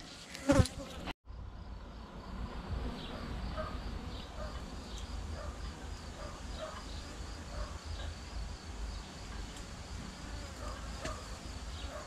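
Many honeybees buzzing around an open wooden hive: a steady hum with single bees passing close. It starts about a second in.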